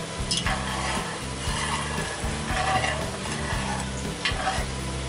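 Pork roast drippings sizzling and bubbling in a hot cast iron Dutch oven as they reduce, while a metal spoon stirs and scrapes the pot in repeated strokes.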